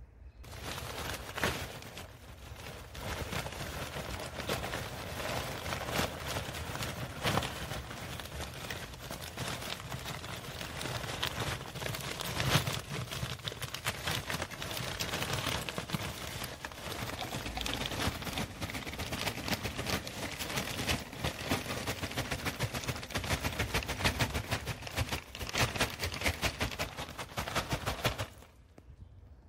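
Charcoal poured from a plastic sack into an earthing pit around the earth rod: a dense, continuous rattle of many small pieces falling, which stops abruptly near the end. The charcoal backfill helps the earth rod make good contact with the soil.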